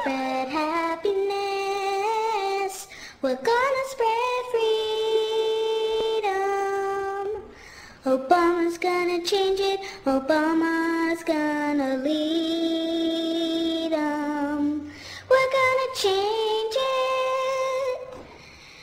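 High voices singing a slow melody of long held notes, in phrases a few seconds long with short breaks between them.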